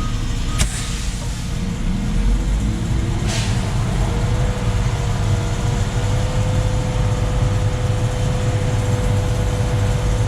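Concrete mixer truck's diesel engine running steadily with a low rumble and a steady whine, with a sharp click about half a second in and a short hiss about three seconds in.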